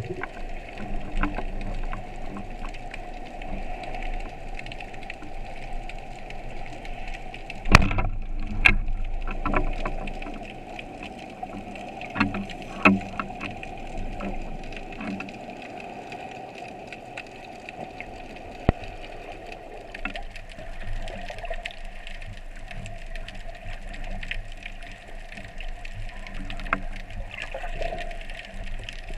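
Underwater sound: a steady hum with scattered clicks and knocks, the loudest knock about eight seconds in.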